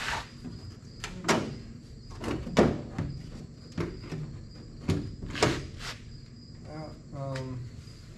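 A run of sharp, irregular knocks and clunks as a part is worked loose by hand in a classic Ford Bronco's engine bay, about seven in all, the loudest about a second and a half in and near the middle. A steady high chirping of insects runs underneath.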